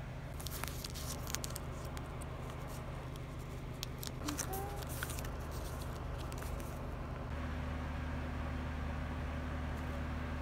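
A steady low hum with soft rustling and scattered small clicks in the first seven seconds or so, from hands handling fabric and objects close to the microphone.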